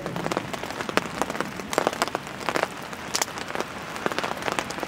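Light rain falling, with irregular raindrop taps close by.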